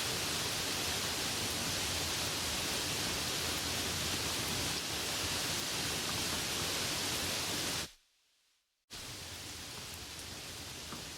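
Steady hiss of rain. About eight seconds in it fades out to a second of near silence, then starts again abruptly, a little quieter: a join between two rain recordings.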